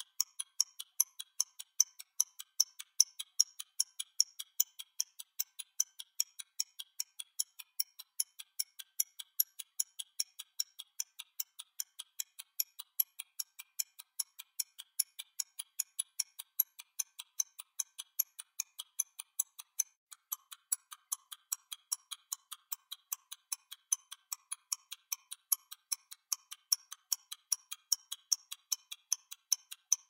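Stopwatch ticking: a fast, even train of sharp, thin clicks, several a second, unbroken throughout.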